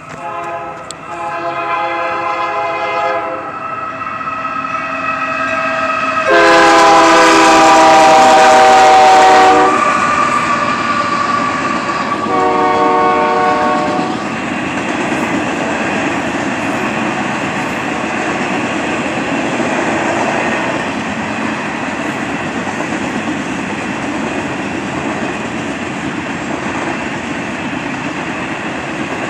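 Freight locomotive horn sounding several blasts, the loudest about six seconds in with its pitch dropping as the locomotive passes, then a short final blast. After that the freight cars rumble and clack steadily past the crossing.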